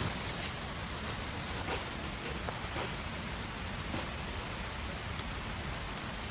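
Steady rain falling, an even hiss with a few faint drop taps.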